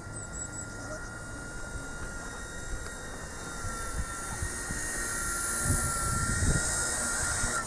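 WLToys V922 six-channel RC helicopter in flight: a steady high electric-motor whine with rotor hiss. It grows louder toward the end as the helicopter comes closer.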